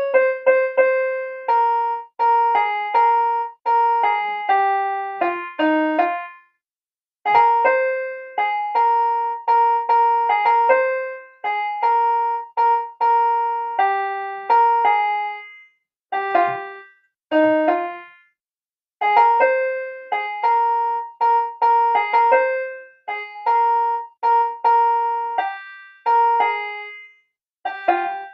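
Portable electronic keyboard playing a single-note melody in a piano-like voice, each note fading after it is struck. The tune comes in short phrases with brief pauses between them.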